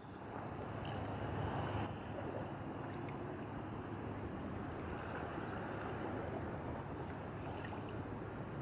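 Steady outdoor waterfront noise: a rush of wind and water with a low hum underneath, fading in over the first second and then holding even.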